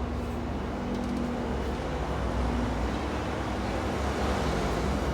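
Sawmill machinery running steadily: a continuous low rumble with a steady mechanical hum over it.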